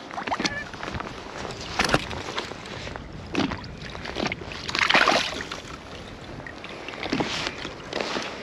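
Water splashing and sloshing in irregular bursts, the loudest about five seconds in, as a small caught sea trout is held in the shallows for release, with wind on the microphone.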